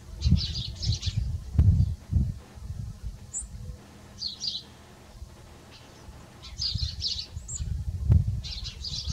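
Small birds chirping and twittering in short bursts, with a few brief high rising chirps. Under them runs an uneven low rumble in bursts, loudest near the start and about eight seconds in, easing off around the middle.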